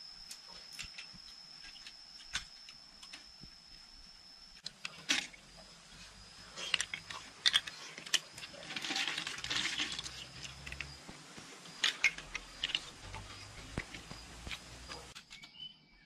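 Clay roof tiles clinking and knocking as they are handled and laid, in irregular sharp strikes that are busiest in the middle, over a thin steady high-pitched whine.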